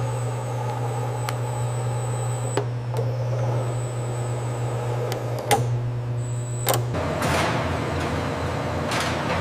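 Factory machinery running: a steady low hum with a few sharp clicks, giving way about seven seconds in to a rougher, noisier mechanical running sound.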